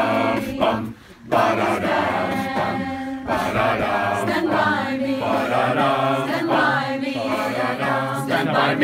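A small choir of young voices, mostly girls, singing together a cappella, with a short break for breath about a second in.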